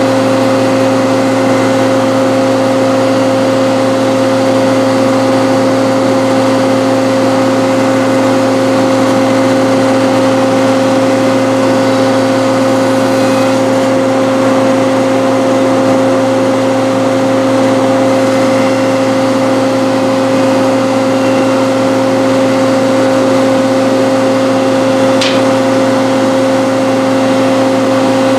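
Wood shaper and power feeder motors running steadily: a constant machine hum with a steady pitched drone that does not change, and a small click near the end.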